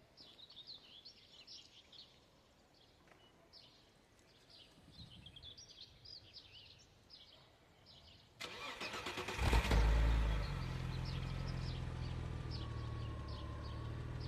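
Audi 100 2.8E's V6 engine started from cold on its stock exhaust: the starter cranks for about a second, the engine catches with a brief loud flare, then settles into a steady idle. Birds chirp throughout, heard alone for the first eight seconds or so.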